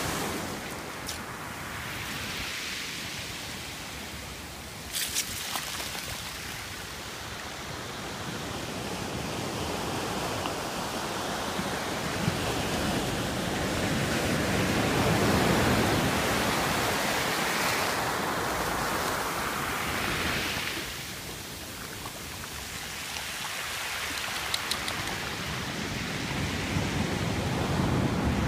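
Ocean surf: waves washing in and drawing back as a steady rushing noise that swells slowly to a peak about halfway through, eases off about two-thirds of the way in, then builds again. A few faint short clicks sit on top.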